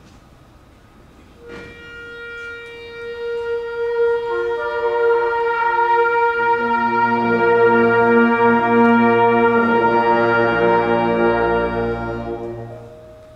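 High school symphonic band of woodwinds and brass sustaining a chord: a single note starts a little way in, other parts join in layers, the sound swells to full and then fades away near the end, leaving one held note.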